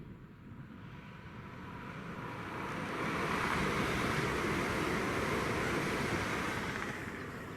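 A train passing at speed: a rush of wheels and air that swells, holds loudest for a few seconds in the middle, then fades away.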